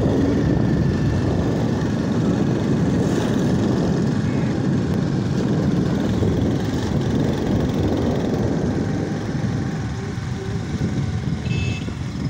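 Small motorcycle's engine running steadily while riding along, easing off slightly in the last few seconds.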